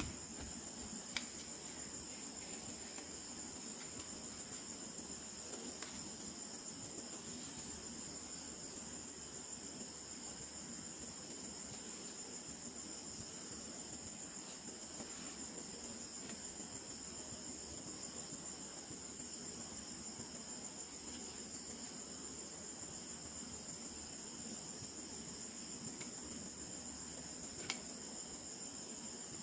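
A steady, faint high-pitched background whine, with a faint click of the plastic doll being handled about a second in and another near the end.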